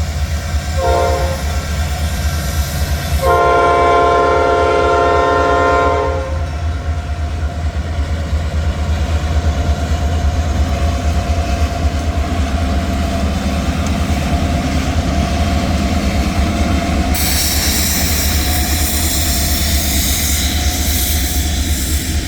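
EMD SD9 diesel locomotive's horn sounds a short blast about a second in, then a longer blast from about three to six seconds, over the steady low rumble of the passing train. About seventeen seconds in a high hiss sets in, which the person filming takes for an air leak.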